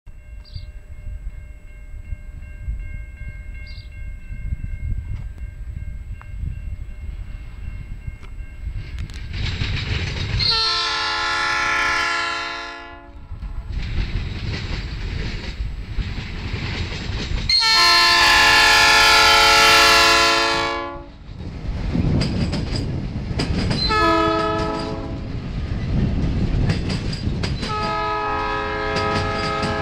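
Norfolk Southern GP38-2 locomotive's Nathan P5 five-chime air horn sounding two long blasts, one short and a last long one that carries on past the end: the long-long-short-long crossing signal. Under the horn the diesel locomotive's engine rumbles, and near the end the passing flatcars' wheels clatter over the rail joints.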